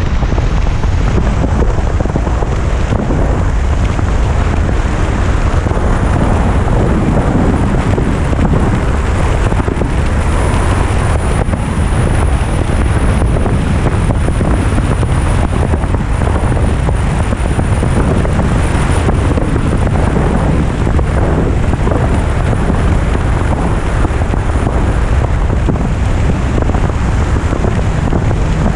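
Steady wind rushing over the camera microphone while riding a Yamaha FJR1300 motorcycle at road speed, with the inline-four engine and tyre noise underneath.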